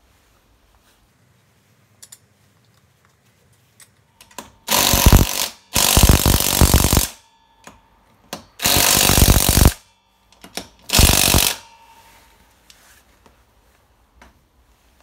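Cordless impact wrench running the wheel nuts onto an ATV's front wheel in four bursts of about a second each, with a few small clicks between.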